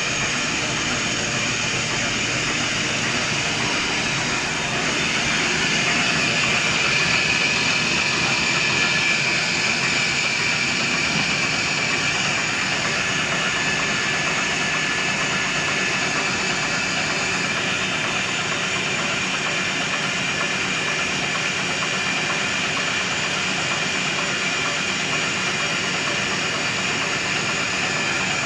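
XY-OQ-7000A automatic napkin tissue folding machine running steadily, an even mechanical noise with a faint steady high tone through it.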